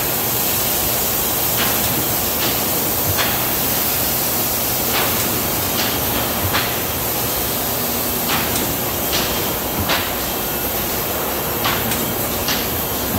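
Sheet-fed cylinder printing press running: a steady loud mechanical hum and hiss, with sharp clicks and knocks from the feeder and sheet transport recurring irregularly every half second to two seconds.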